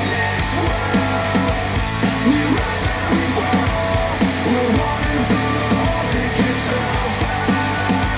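Instrumental rock music with a repeating electric guitar riff over drums and bass, played back through KEF LS50 Meta bookshelf speakers driven by a NAD C 338 integrated amplifier.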